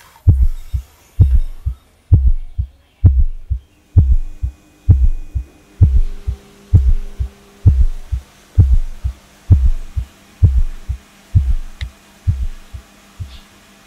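Heavy, low heartbeat sound effect: a steady double thump about once a second over a faint steady hum. The beats grow weaker and stop shortly before the end.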